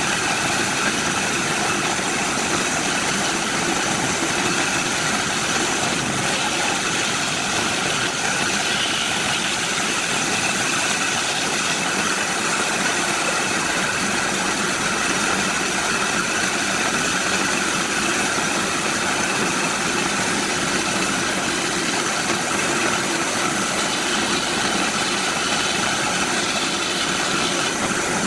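Bandsaw running steadily, its blade cutting through short sections of green, bark-covered log.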